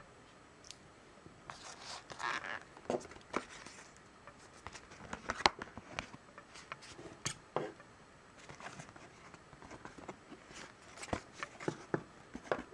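Plastic blister pack with a cardboard backing being handled, crinkling and clicking irregularly, with scissors cutting into the card near the end.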